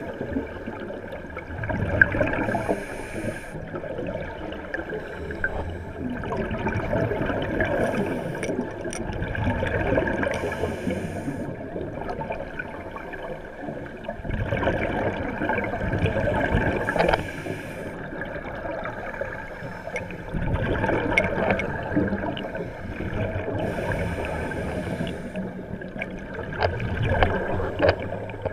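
Scuba divers' exhaled bubbles gurgling and bubbling, heard underwater, in irregular swells every few seconds.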